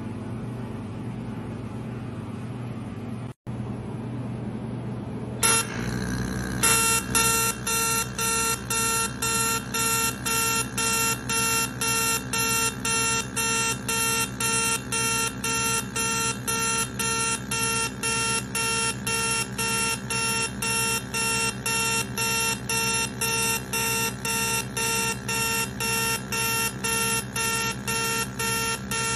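Cosmetic skin-treatment machine beeping steadily, about two electronic beeps a second, starting a few seconds in; before that only a low steady hum.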